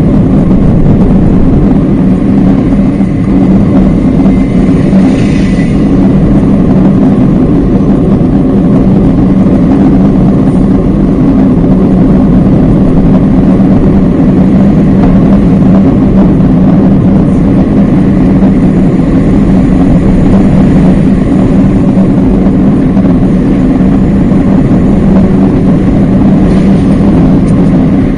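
Steady, loud rush of riding noise and city traffic picked up by a camera mounted on a moving bicycle, with a brief higher hiss about five seconds in.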